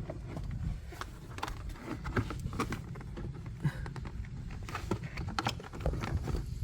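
Scattered small clicks and rustling from a dash cam power cable and plastic interior trim being handled while the wire is tucked behind the panels.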